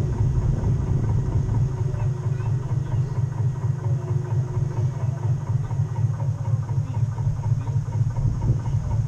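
Model boat's drive running with a steady low hum that flutters quickly, heard from on board the hull.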